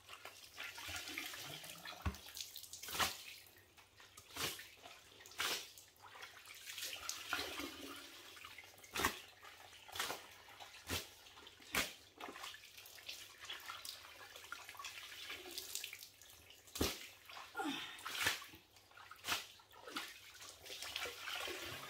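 Wet towel mopping standing water off a flooded wooden floor: irregular sharp splashes and slaps as the towel is pressed and lifted, with water dripping and spattering back into the puddle as it is wrung out.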